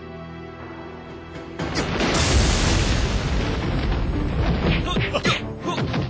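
Tense film music with held notes, then about a second and a half in a loud boom sound effect, a magic-blast or explosion, that swells and slowly fades over a few seconds. Quick whooshes and hits follow near the end.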